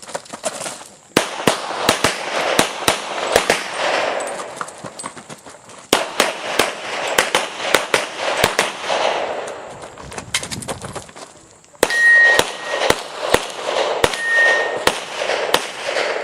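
Rock Island Armory Pro Ultra Match pistol firing .40 S&W rounds in rapid strings during a competition stage run, each shot echoing, with short lulls about one, six and twelve seconds in.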